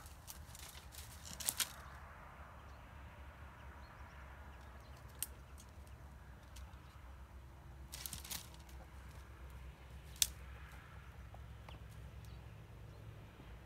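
A large dog scrabbling and tearing at the hollow base of a tree stump in dry brush, with a few sharp cracks of breaking twigs and wood. The loudest crack comes about ten seconds in.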